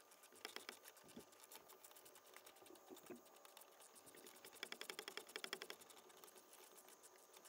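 Ratchet wrench clicking faintly as it is swung back and forth to loosen a spark plug, with scattered clicks and a fast run of clicks about halfway through.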